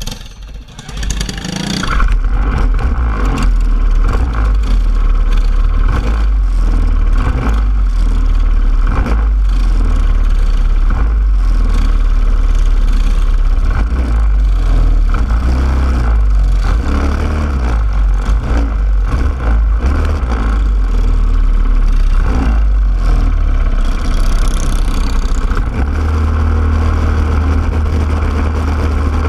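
Racing kart engines start up about two seconds in and then run steadily at low revs, the engine of the kart carrying the camera loudest. Near the end its revs step up as the kart pulls away onto the track.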